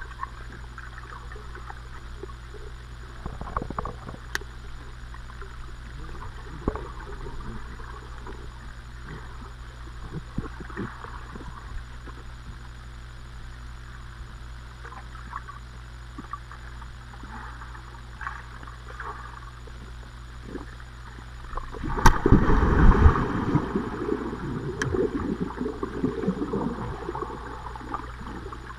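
Underwater sound heard by a GoPro camera submerged in its housing: muffled gurgling and scattered small bubbles and clicks from swimmers moving in the water, with a loud rush of splashing and bubbles about three quarters of the way through.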